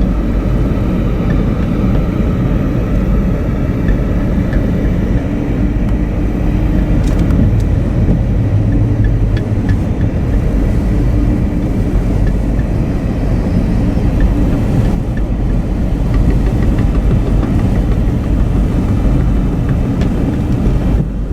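Car driving along a road: steady engine and tyre rumble.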